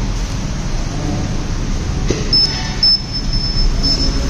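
Bajaj Chetak electric scooter's seat latch releasing with a click, followed by the scooter's high-pitched warning beep repeating steadily, the signal that the seat is open, over a low steady rumble.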